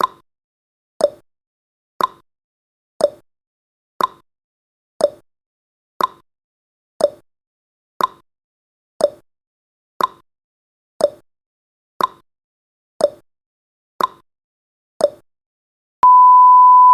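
Countdown timer ticking sound effect: one tick a second, alternating higher and lower like a clock's tick-tock. About a second before the end, the ticks give way to a steady high beep as the countdown reaches zero.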